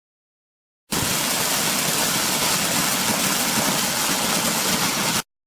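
Steady machine noise with a strong hiss, starting abruptly about a second in and cutting off suddenly near the end.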